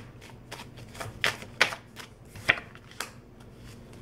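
Tarot cards being handled: about ten sharp, irregular card snaps and taps over a few seconds.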